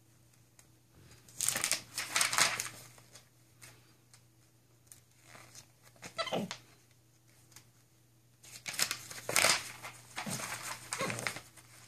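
Glossy catalog pages rustling and flapping as a capuchin monkey turns them with its hands, in several short bursts with quiet between.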